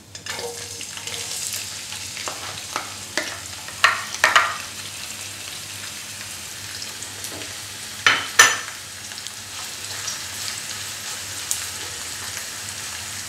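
Raw chopped onions sizzling in hot oil in a nonstick frying pan, a steady frying hiss that starts as they go in, while a plastic spatula stirs them with scrapes and sharp knocks against the pan, the loudest around four and eight seconds in.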